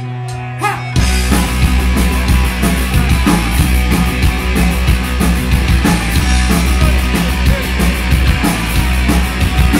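Live punk rock band starting a song instrumentally: a steady low hum with a few clicks, then about a second in the drums and full band come in together and keep going.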